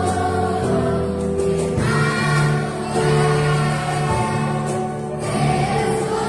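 Children's choir singing a Portuguese worship song, with band accompaniment of sustained low notes underneath the voices.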